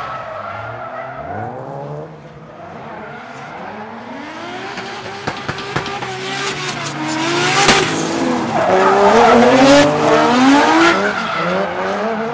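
Nissan Skyline GT-R R33's RB26DETT twin-turbo straight-six revving up and down through a drift, with tyre squeal. There are a few short cracks about halfway, and the car gets louder in the second half.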